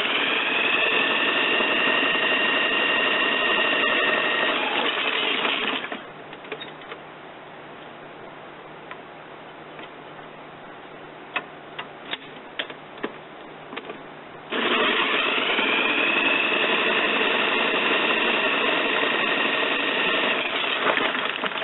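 Power drill whining at full speed as it tries to spin a lawn mower engine over in place of the broken starter rip cord, the engine not catching. It runs twice for about six seconds each, the whine rising briefly as it spins up, with a few clicks in the pause between.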